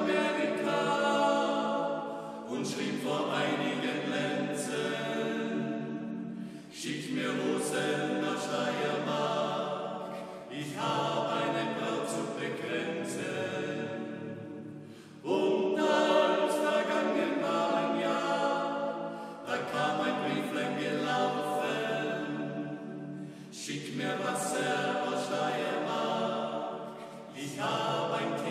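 Men's voices singing a German song a cappella, in phrases of about four seconds with short breaths between them.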